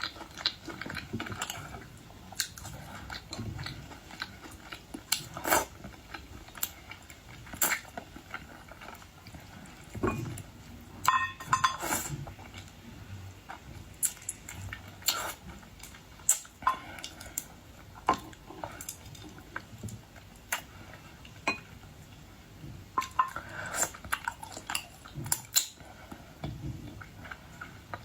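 Close-miked eating of boiled shrimp and lobster: chewing, with irregular sharp clicks and clinks from shells and tableware and a quick run of clicks near the middle.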